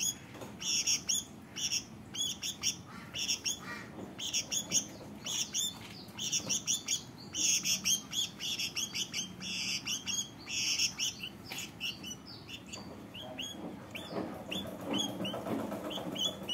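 Caged sooty-headed bulbul (kutilang) calling: clusters of bright, rapidly repeated chirps. In the last few seconds it switches to short single chirps, about two or three a second.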